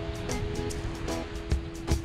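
Background music with a steady beat, laid over the wash of small waves breaking on a sandy beach.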